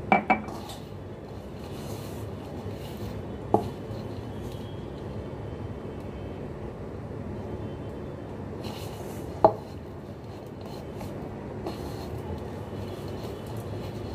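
Hands kneading maida dough in a steel bowl, a steady soft rubbing. A glass knocks twice on the counter as it is set down at the start, and two more sharp knocks come later, one a few seconds in and one louder one past the middle.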